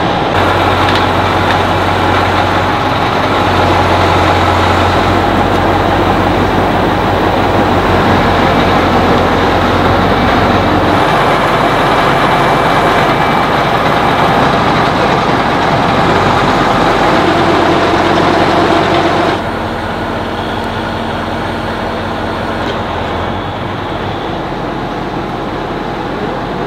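Heavy truck diesel engine running steadily. About two-thirds of the way through, the sound abruptly drops and changes to a quieter, steady engine hum.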